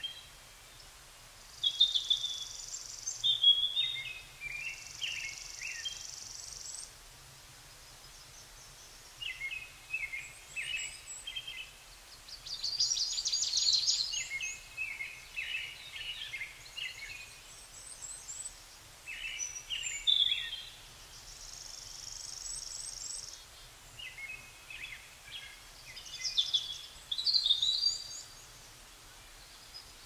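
Forest birdsong: several birds singing in short chirping phrases, with a few high, buzzing trills each lasting a second or two and a rapid stuttering series about halfway through.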